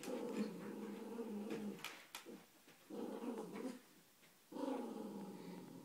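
Dog play-growling in three long bouts while tugging on a sock in a game of tug-of-war.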